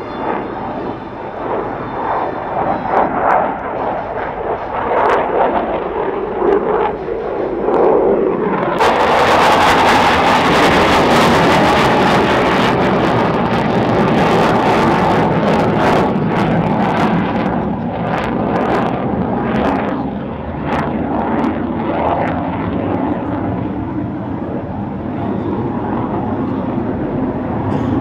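F-16 Fighting Falcon jet engine roaring overhead, its pitch sweeping slowly as the jet passes. About nine seconds in, the sound jumps abruptly to a much louder, fuller roar with sharp crackling through the middle stretch.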